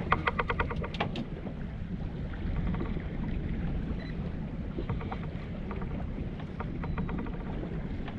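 Steady low rumble of a small boat on the water. In the first second there is a quick run of evenly spaced clicks, about eight a second, followed by a few scattered ticks later on.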